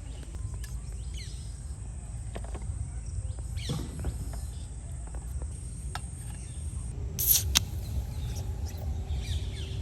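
Rural outdoor ambience: a steady high insect drone and scattered bird chirps and clicks over a low rumble. A sharp, loud high burst comes about seven seconds in, and the insect drone stops there.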